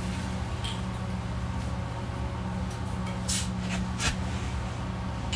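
Steady low hum, with a couple of short hisses past the middle and a sharp click about four seconds in.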